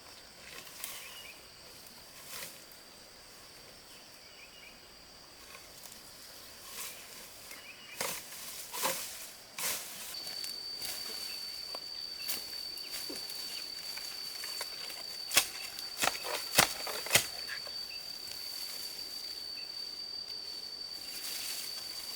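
An insect trilling on one steady high note, louder from about ten seconds in, with scattered sharp knocks and clicks, four of them close together in the second half.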